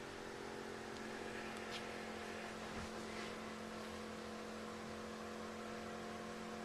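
Steady electrical hum with several steady tones, and a few faint ticks.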